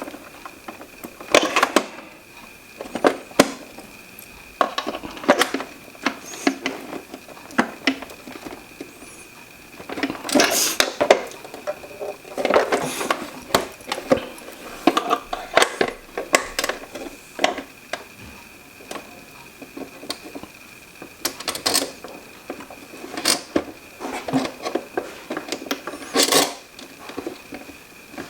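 A screwdriver and hands working at stubborn Phillips screws in a plastic humidifier base: irregular clicks, knocks and scraping of metal on plastic, coming in clusters every second or two. A faint steady high whine sits underneath.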